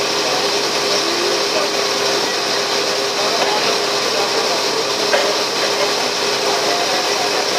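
Passenger ferry's engine running steadily, a constant drone with a steady hum, mixed with the rush of wind and water during the crossing.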